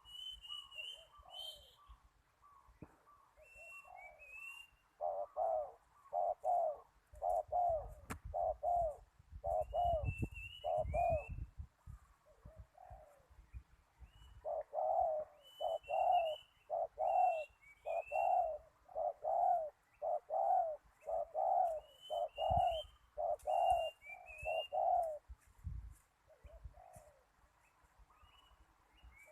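Spotted doves cooing in two long runs of evenly spaced coos, with softer coos between the runs. Short rising chirps of small birds recur throughout.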